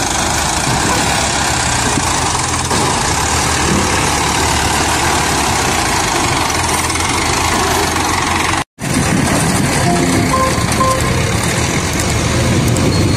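Mahindra 275 DI tractor's diesel engine running steadily. The sound cuts out for an instant about two-thirds of the way through, then a diesel engine keeps running, with a few short beeps soon after.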